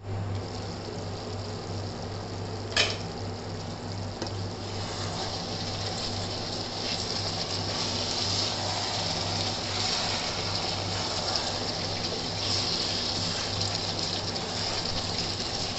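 Chicken masala gravy sizzling and bubbling in a nonstick kadai while a wooden spatula stirs it. There is one sharp knock about three seconds in, and a steady low hum underneath.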